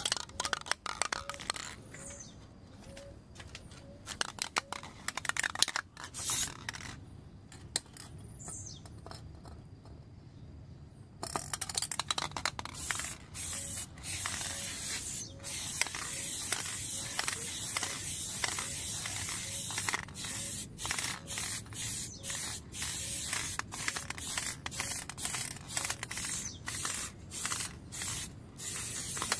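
Aerosol spray-paint can hissing as it paints a truck wheel. At first it comes in short, scattered bursts. From about a third of the way in it sprays almost continuously, broken by many brief pauses.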